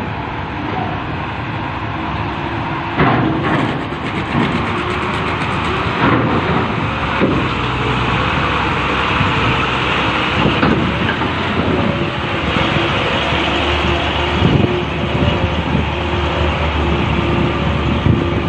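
Trucks driving off a ferry, engines running under a constant noise with a steady low hum and repeated heavy clunks, amid strong wind.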